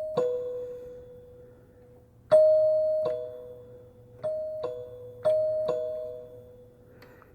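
Yamaha PSR-330 keyboard on its celesta voice playing a doorbell ding-dong: a high note falling to a lower one, each struck cleanly and ringing away. The lower note of one chime sounds at the start, then three more ding-dongs follow, the last two quicker.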